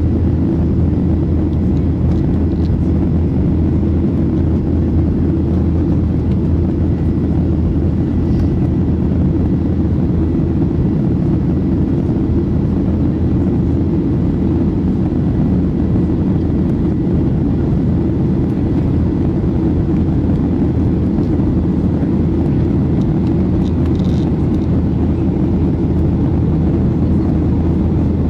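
Steady, loud noise of a jet airliner in flight heard from inside the passenger cabin: engine and airflow noise that stays the same throughout.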